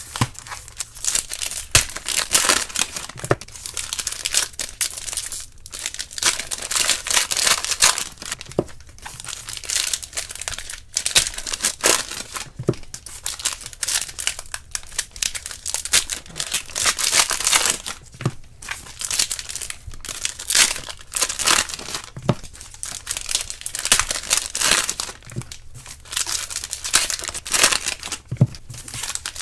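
Foil wrappers of trading-card packs crinkling and tearing as they are ripped open by hand, over and over with short gaps.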